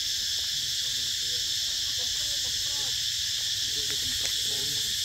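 Cicadas in the treetops singing in a steady, high-pitched buzzing chorus that holds at an even level.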